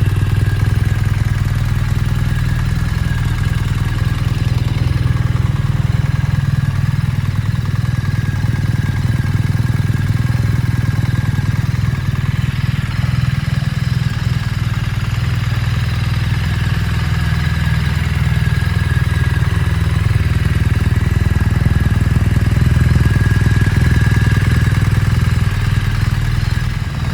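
BMW R1300 GS boxer-twin engine idling steadily, just started on a freshly flashed Stage 1 ECU remap.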